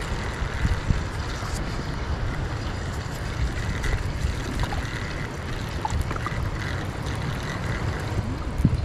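Wind buffeting the microphone outdoors, a steady low rumble with small gusty swells in level.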